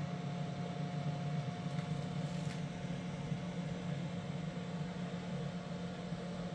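Closed-loop stepper motor of a DIY CNC router driving an axis along its ball screw at a constant jog speed: a steady hum with a fainter higher tone above it.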